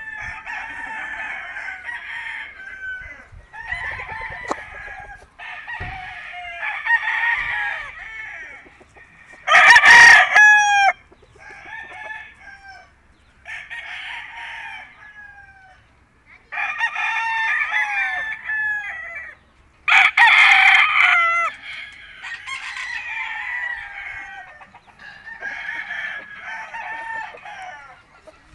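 Several penned roosters crowing one after another, about a dozen crows in all, some running into each other; the loudest come about ten and twenty seconds in.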